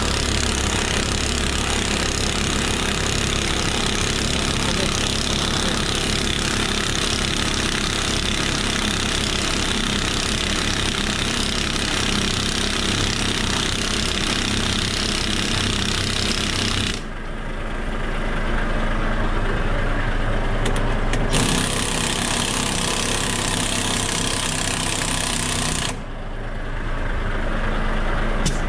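Heavy truck diesel engine running hard with a loud rapid clatter. The sound changes abruptly twice, about two-thirds of the way through and again near the end, then builds back up.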